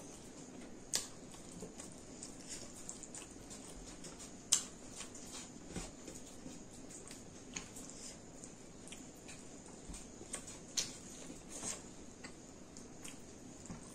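Close-up eating sounds: chewing and wet lip-smacking while eating rice by hand, with fingers mixing food on a metal plate. Irregular small clicks and smacks, a few louder ones scattered through.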